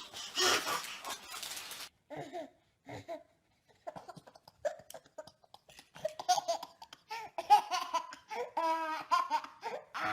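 A baby laughing in a string of short bursts. It starts with breathy laughs and turns to higher, pitched giggles in the second half.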